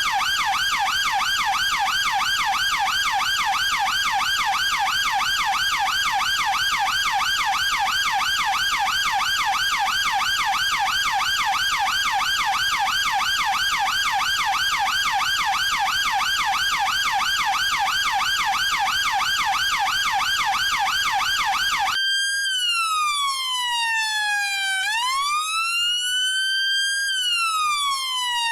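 Chinese police electronic siren running in a fast, even warble. Near the end it switches abruptly to a slow wail that falls and rises again, each sweep taking about two to three seconds.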